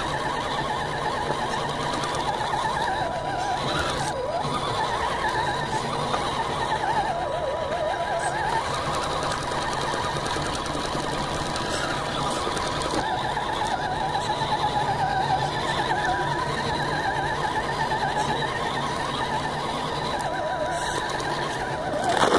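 Electric motor and gear drivetrain of an Axial SCX10 RC crawler whining close up, the pitch rising and falling over and over as the throttle changes on the trail. A sharp knock near the end.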